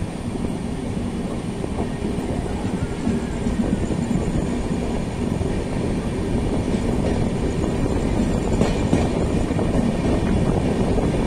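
Passenger train coach running at speed, heard from its side: a steady rumble and rattle of wheels on the track, growing slowly louder, with a few sharper wheel clacks about two-thirds of the way in.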